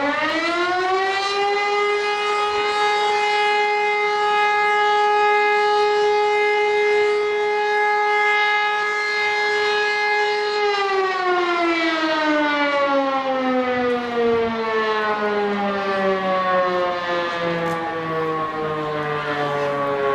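Fire brigade civil-defence siren sounding the call-out alarm. It winds up to a steady wailing tone, holds it for about ten seconds, then slowly winds down, still falling near the end.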